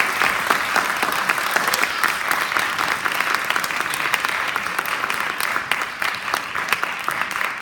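Audience applauding, a dense patter of many hands clapping that eases slightly toward the end.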